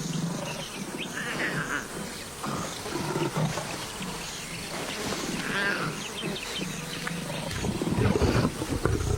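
Lions growling and grunting in a string of low, rough calls, loudest near the end, with insects buzzing.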